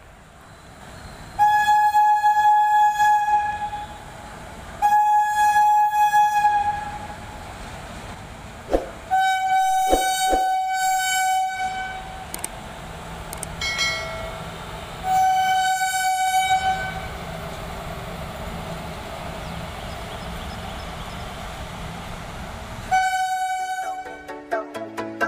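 Indian Railways WAG-7 electric locomotive's horn sounding about five long blasts over the steady rumble of a freight train running past. Electronic outro music starts in the last second.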